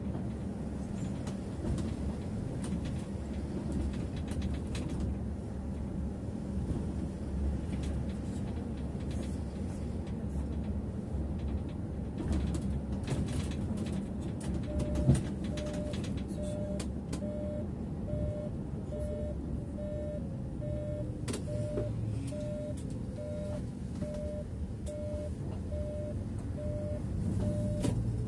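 Mercedes-Benz bus under way, heard from the driver's cab: steady engine and road rumble with small rattles and clicks, and one sharp knock about halfway through. From about halfway on, a short beep repeats about one and a half times a second: the turn-signal indicator.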